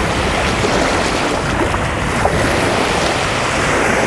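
Small waves of Lake Michigan breaking and washing up onto a sandy beach: a steady rush of surf.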